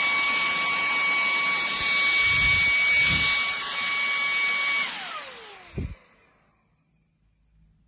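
Shark WandVac 2.0 cordless handheld vacuum running with a steady high whine over a rush of air. About five seconds in it is switched off and the motor winds down, its whine falling in pitch, followed by a short knock.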